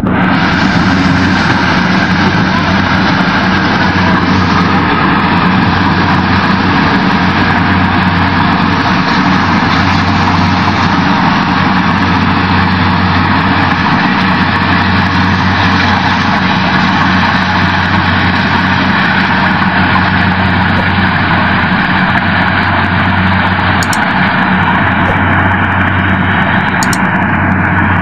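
Compact tracked corn combine harvester running steadily as it cuts and threshes standing corn: a constant engine and machinery noise with a low, even hum.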